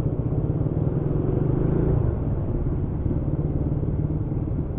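Motorcycle engine running while riding slowly in traffic, easing off about two seconds in.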